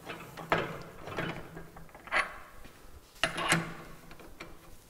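Clamp screws on a drum mixer's top crossbar being tightened with a hand tool: several separate sharp clicks and clanks, roughly one a second, as the tool turns the screws down snug onto the drum.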